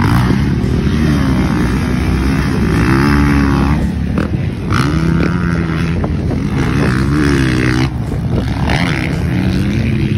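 Motocross dirt bike engines running hard, the pitch climbing and falling several times as the bikes rev up through the gears and back off.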